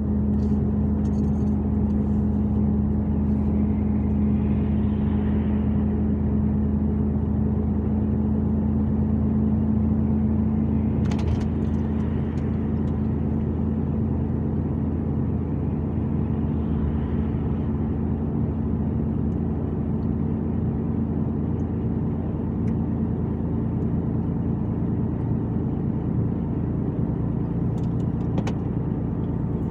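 Truck cab interior at steady motorway speed: the diesel engine and road noise make a constant low drone with a steady hum. A few brief clicks come about eleven seconds in and again near the end.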